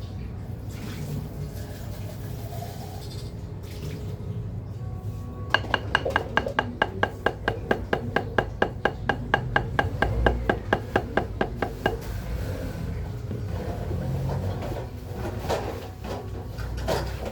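Pancake batter being mixed in a bowl: the mixing utensil knocks against the bowl in a fast, even rhythm of about five ringing clicks a second for some six seconds, starting about five seconds in, with quieter stirring either side.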